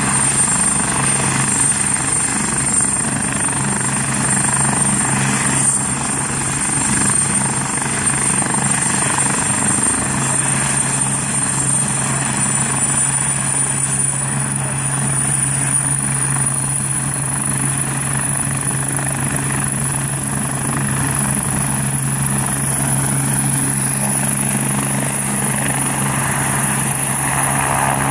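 Agusta A109K2 helicopter running on the ground, its twin turboshaft engines giving a steady high turbine whine over the rotor noise. About halfway through, the whine climbs slightly in pitch as power comes up. Near the end the rotor sound grows as the helicopter lifts off.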